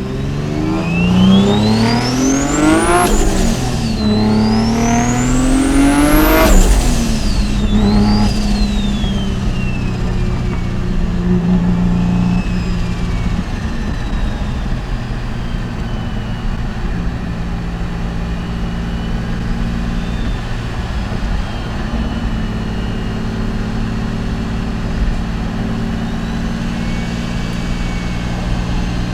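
Mitsubishi 3000GT VR4's turbocharged 3.0-litre V6 accelerating hard through two gears, its pitch climbing, dropping at the upshift and climbing again, with a high turbo whine rising alongside each pull. After a brief third pull the engine settles to a steady cruise.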